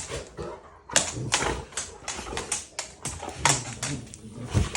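Two dogs play-wrestling: quick irregular clicks and scuffles of their paws and claws scrabbling on a hard floor.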